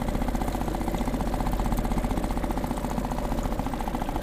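A small motor on a fishing kayak running steadily at low speed, a fast, even pulsing that does not change.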